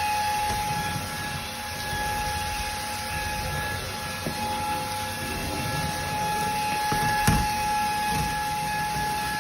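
TASVAC 260 W cordless stick vacuum running: a steady high motor whine over a hiss of rushing air, with a single knock about seven seconds in.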